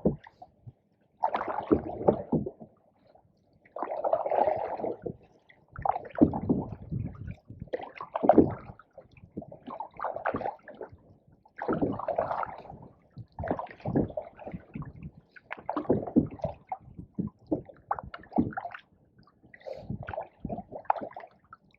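Canoe paddles dipping and pulling through pond water, a gurgling swish roughly every two seconds.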